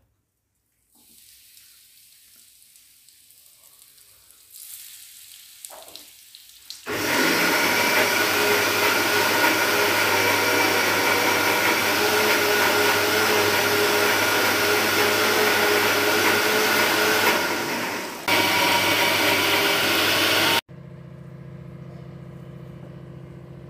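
Semolina-coated surmai (kingfish) pieces shallow-frying in hot oil in a pan. A faint hiss at first, then a loud, steady sizzle from about seven seconds in, broken once by a short dip. Near the end it gives way to a quieter, steady low hum.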